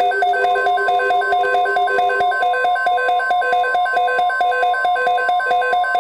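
Electronic alert beeping: a rapid, even pattern of several alternating pitched tones, about five beeps a second. A steady high tone comes in about half a second in and carries on under the beeping, the weather radio's warning tone.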